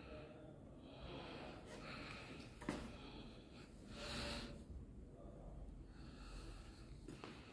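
Faint breathing close to the microphone, soft breaths a second or two apart, with a single click about two and a half seconds in.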